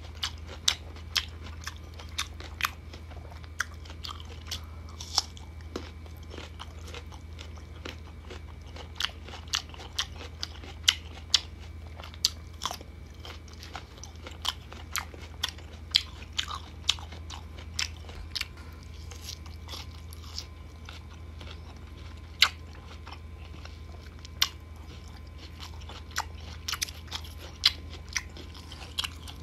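Close-up crunching and chewing of crisp unripe green mango slices: sharp, irregular crunches from bites and chews, over a steady low hum.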